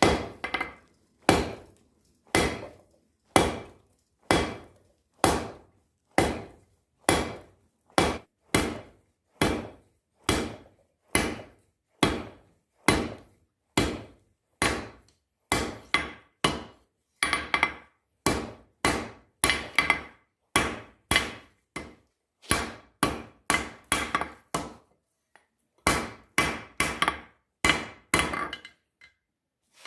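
Blacksmith's hammer striking a 3/4-inch square steel bar on an anvil, each blow ringing briefly. The blows come about one a second at first and speed up to roughly two a second, some in quick pairs, with a short pause near the end.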